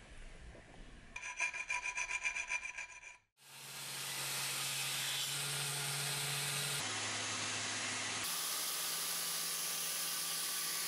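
About two seconds of quick hand-file strokes on steel, with a metallic ring, as the serrations on a knife blade's spine are filed. Then a small electric belt grinder runs steadily with a low motor hum, grinding the bevels of the steel blade.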